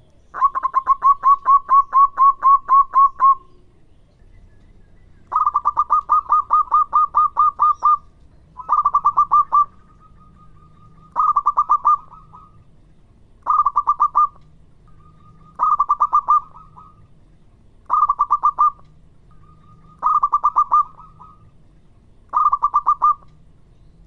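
Zebra dove (perkutut) singing its rapid staccato cooing song: a long run of about a dozen quick notes, a second long run, then shorter bursts roughly every two seconds, several ending in a brief drawn-out note.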